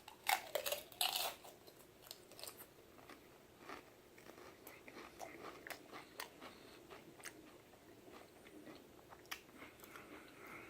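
Mouth biting into crisp Pringles Pizza-flavor potato chips: a few loud crunches in the first second and a half, then quieter chewing with soft clicks.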